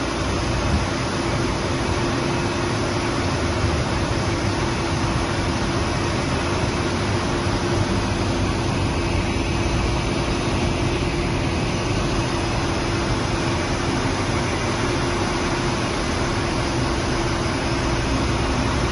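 Volvo A35F articulated hauler's six-cylinder diesel engine running steadily with an even hum, driving the hydraulic hoist as the dump body is tipped up.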